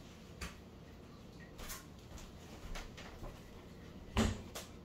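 Faint clicks and light handling noises as parts of an opened pump are handled, with one louder knock about four seconds in.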